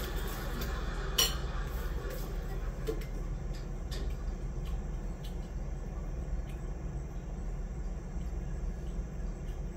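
Cutlery clinking against a dish about a second in, then a few fainter clicks, over a steady low hum in the room.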